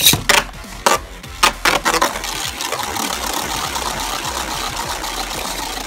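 Beyblade Burst top, Achilles, launched into a plastic stadium: several sharp clacks in the first two seconds as it lands and knocks against the stadium, then a steady whirr as it spins on the plastic floor.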